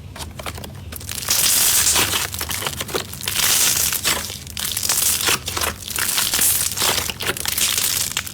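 Crunchy slime being squeezed and pressed by hand: a dense crackling crunch of many small pops and clicks, louder from about a second in and easing off briefly a few times.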